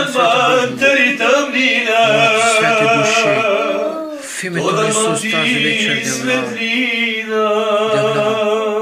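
Two men singing a worship song together, unaccompanied, holding long wavering notes. There is a brief break about four seconds in.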